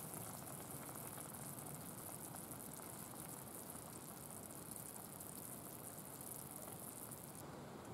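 Pan of chicken in broth simmering steadily over a camp stove: a low bubbling with a high hiss. The hiss drops away abruptly near the end.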